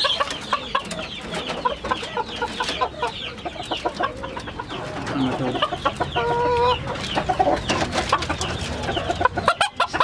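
Caged chickens clucking and calling, with many short overlapping chirps throughout and a brief held call about six and a half seconds in.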